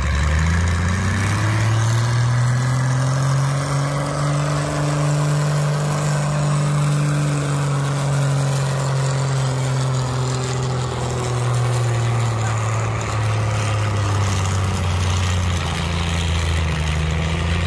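Engine of a pulling vehicle running hard on a pull run, one long loud run whose pitch climbs over the first few seconds, holds, and sinks again toward the end.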